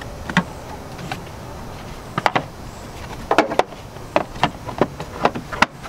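A run of short sharp clicks and knocks, a dozen or so over the last few seconds, as a replacement 15 amp fuse is pressed into the truck's under-hood fuse box and the box is handled, over a low steady outdoor background hum.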